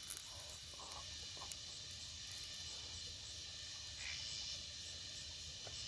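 Insects chirping steadily in the background as a continuous high-pitched chorus, with a couple of faint clicks near the start and about a second and a half in.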